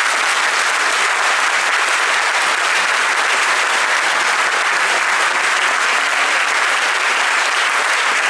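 Audience applauding, loud and steady, with many hands clapping at once.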